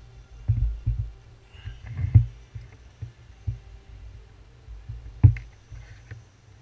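Hands handling the small metal parts of a rebuildable vape atomizer: irregular soft low thuds with light metallic clicks, the sharpest about two seconds in and again about five seconds in.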